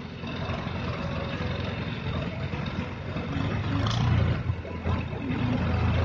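Diesel engine of an ACE 12XW pick-and-carry crane running, growing louder about three and a half seconds in.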